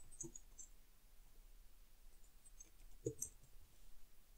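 Faint computer keyboard typing: a handful of scattered key clicks, the clearest about three seconds in.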